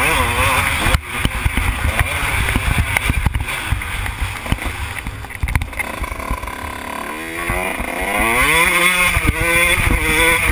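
Kawasaki KX125 two-stroke motocross engine revving up and down as the rider works the throttle, under heavy wind buffeting on the microphone. The engine pitch falls near the start and climbs steadily from about seven seconds in.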